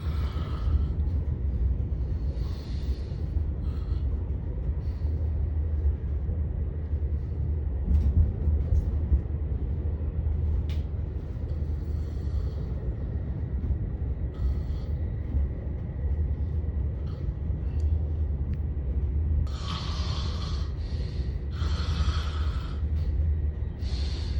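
A man snoring loudly, rasping snorts and breaths coming every two to three seconds, over the steady low rumble of a moving train.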